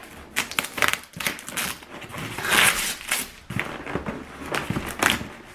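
Scissors slitting the packing tape along the seam of a cardboard box: sharp clicks and scrapes of the blade on tape and cardboard, with a longer crackling rasp about halfway through.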